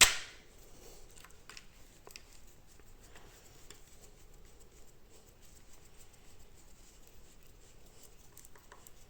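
A sharp knock right at the start, then faint small clicks and scrapes of a screwdriver turning an M4 screw into a 3D-printed plastic part.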